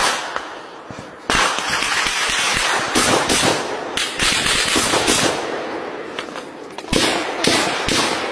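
Heavy automatic rifle fire: a sudden start about a second in, then rapid shots packed together into a dense rattle, breaking near the end into separate sharp shots.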